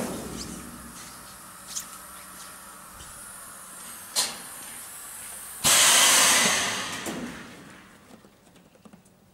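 Air hissing through a veneer vacuum press, starting abruptly a little past halfway and dying away over about two seconds, over a low steady hum; two sharp clicks come before it.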